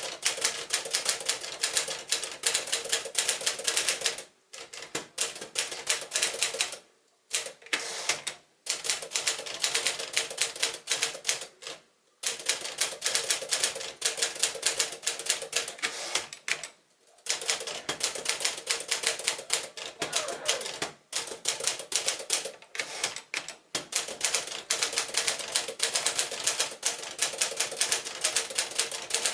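1957 Smith-Corona Clipper manual portable typewriter being typed on: fast runs of keystrokes clacking, broken by short pauses every few seconds.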